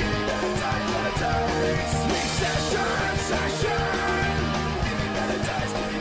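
Punk-style rock song with a full band, driving drums and shouted vocals.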